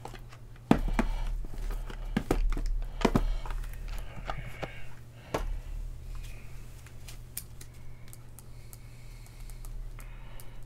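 Trading-card handling: plastic wrappers and sleeves crinkling and rustling, with scattered sharp clicks and taps, most of them in the first few seconds, over a steady low hum.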